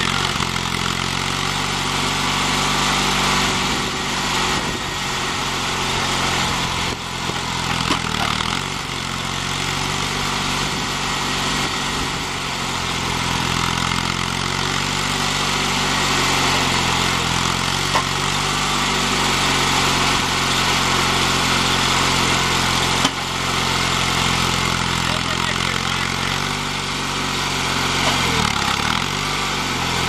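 Small lawn tractor engine running steadily while it works a homemade hydraulic backhoe attachment digging soil, its pitch sagging briefly now and then. A couple of short sharp knocks, one about two-thirds of the way through.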